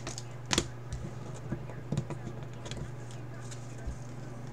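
Stiff chrome trading cards being flipped and slid against each other in the hands: a scattered series of light clicks and snaps, over a steady low hum.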